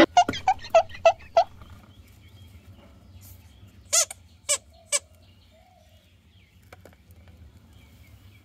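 Rubber squeeze-toy chicks squeaking: a quick run of about six short squeaks, each a little higher than the last, in the first second and a half, then three sharper squeaks about half a second apart as one toy is squeezed by hand.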